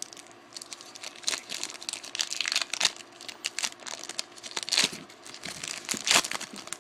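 Foil wrapper of a Topps Chrome trading-card pack crinkling and tearing as it is opened by hand, in irregular crackles that are loudest near the end.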